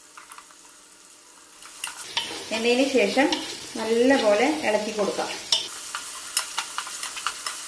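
Wooden spoon stirring onion, capsicum and tomato frying in oil in a non-stick pot: sizzling, with the spoon scraping, squeaking and knocking against the pot. It is faint at first and louder from about two seconds in, with quick knocks of the spoon near the end.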